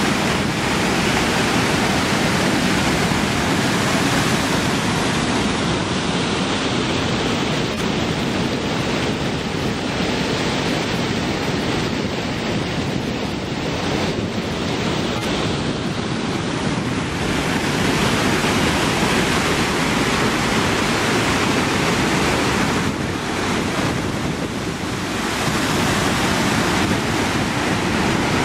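Water spilling over a curved concrete weir and churning into the pool below: a loud, steady rush that dips slightly a couple of times.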